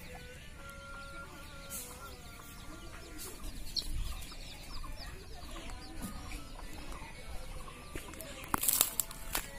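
Domestic hens clucking as they forage, with a brief louder scuffing noise near the end.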